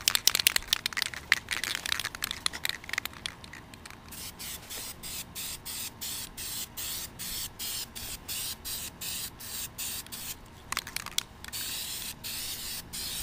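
Aerosol can of white spray primer hissing as it is sprayed. It is uneven and crackly for the first few seconds, then hisses in quick spurts broken by short gaps about twice a second, and ends in a longer, steadier spray near the end.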